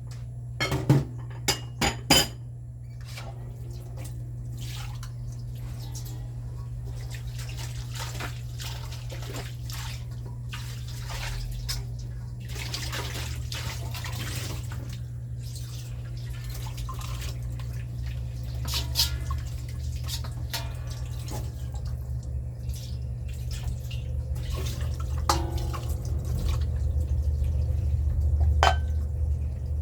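Kitchen chore sounds: dishes and utensils clinking and knocking, with water running and dripping, over a steady low hum. The loudest are a few sharp knocks about one to two seconds in.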